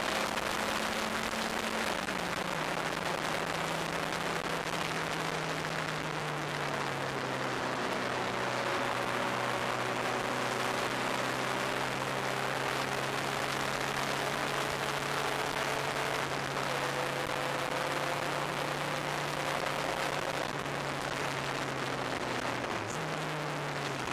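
Turbocharged engine of an open-cockpit track car at speed, its steady note under heavy wind rush over the onboard microphone. The engine note steps down about two seconds in and again around seven seconds in, then dips sharply and comes back up near the end.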